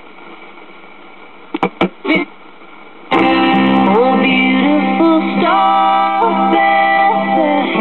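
Speaker of a circa-1968 GE solid-state AM radio giving a steady hiss of static with a few sharp crackles, the static fault this set has. About three seconds in, a station playing music with a singing voice comes in suddenly and loudly.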